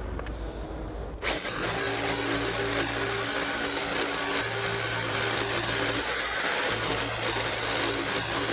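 Rotary hammer drill boring into concrete, starting about a second in, with a dust-extraction vacuum running at the hole. The hammering comes in three spells with short breaks between them.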